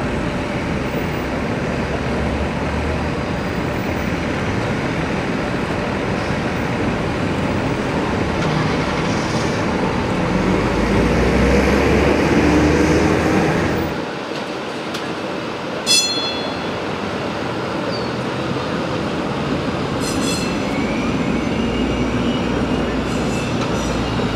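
A 1952 PCC streetcar rolls past on street track, its running noise building to a peak as it passes close by. The sound drops suddenly about two-thirds of the way through, giving way to steadier street-traffic noise with one short, sharp ringing strike.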